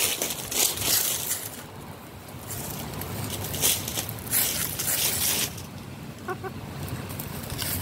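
Uneven rustling and gusty noise, with a hen's two short, soft clucks about six seconds in.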